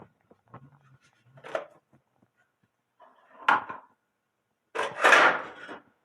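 Handling noises: light clicks and knocks, then a few short rubbing or scraping sounds. The loudest is a scrape lasting about a second near the end.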